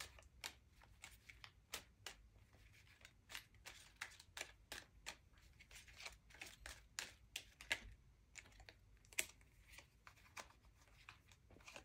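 Tarot cards being shuffled by hand: a faint, irregular run of soft clicks and flicks.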